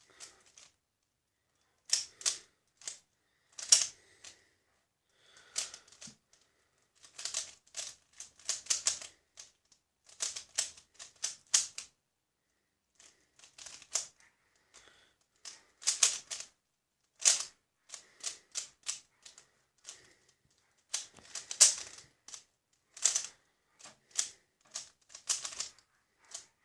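ThunderClap 3x3 speed cube being turned through a solve: rapid plastic clicking and clacking of the layers, in bursts with short pauses between them. The cube turns smoothly.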